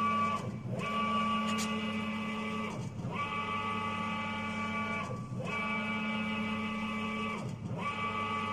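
5-axis CNC router running with a steady, multi-tone motor whine. Four times, at even intervals of about two and a half seconds, the pitch swoops down, drops out briefly and comes back up.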